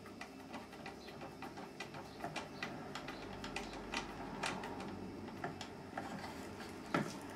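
Hand screwdriver turning a screw into a wooden mechanism part: a run of faint, irregular clicks and creaks, with a sharper knock near the end.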